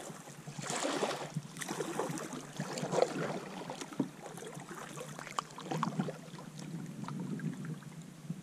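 Kayak paddle strokes: the blade swishing and splashing through the water in uneven surges, with a few sharp knocks along the way.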